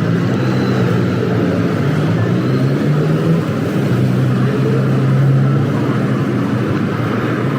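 An engine running steadily with a low drone whose pitch shifts a little, swelling slightly about five seconds in.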